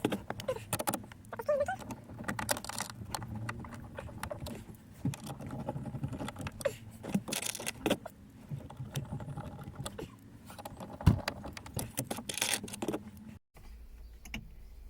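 Screws and metal mounting hardware being handled and fitted while the car stereo head unit is secured in the dash: a run of small metallic clicks, rattles and scrapes, some louder knocks among them.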